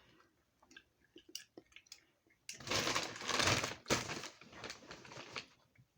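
Plastic candy packaging crinkling and rustling for about three seconds, starting some two and a half seconds in and fading into scattered crackles, after a few faint clicks.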